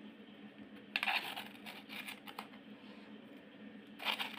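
A spoon scraping and scooping partly frozen watermelon slush, its ice crystals grating against the container in short scratchy strokes about a second in, faintly around two seconds, and again near the end, over a faint steady hum.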